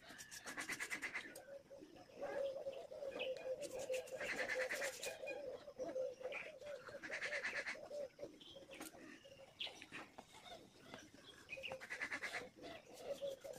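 Pigeons cooing with a low, wavering call, joined every few seconds by short bursts of rapid chirping from other birds.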